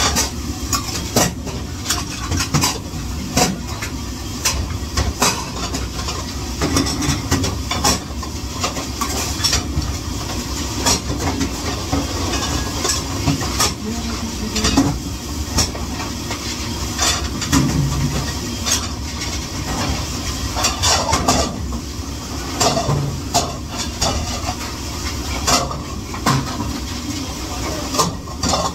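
Dishes and utensils clattering in frequent, irregular knocks over a steady rushing noise, as in hand-washing dishes in a busy kitchen.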